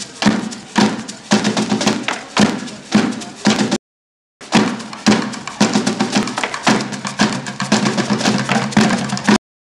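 Batucada percussion ensemble drumming, a steady beat of about two heavy hits a second over busy, rattling strokes. The sound cuts out completely for about half a second midway and again near the end.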